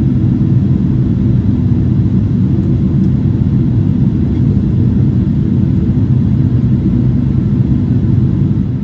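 Steady low cabin rumble inside a Boeing 777-300ER in flight: engine and airflow noise from its GE90 turbofans and the airframe, heard from a window seat behind the wing.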